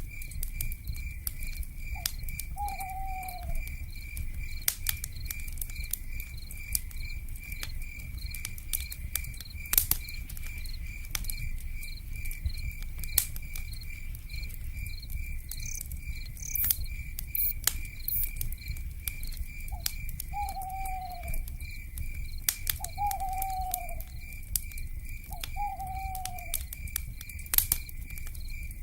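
Wood fire crackling with scattered sharp pops over a low steady rumble, under a steady pulsing insect chorus. An owl gives a short falling call once about two seconds in and three more times near the end.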